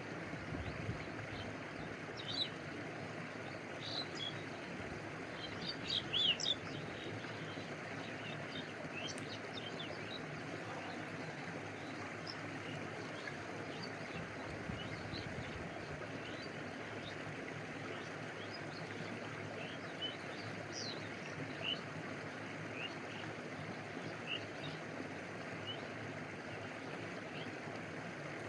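Steady rush of a flowing stream with water lapping, under scattered short, high chirps that come thickest in the first few seconds and again about two-thirds of the way through.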